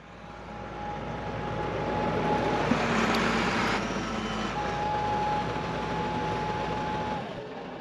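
Åkerman tracked excavator's diesel running, swelling in level over the first few seconds and then holding steady. A thin steady whine sounds over it twice.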